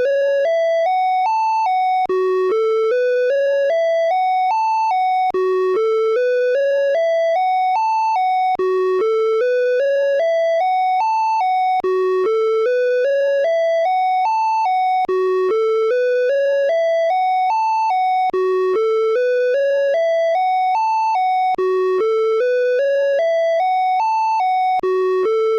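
Electronic emergency-alert alarm tone: a run of stepped beeps that climbs from a low note to a high one, then starts over, repeating about every three seconds.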